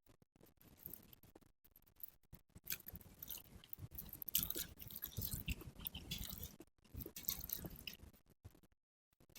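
Close-miked chewing of a mouthful of food, with irregular wet smacks and clicks. The chewing pauses briefly twice, the second time near the end.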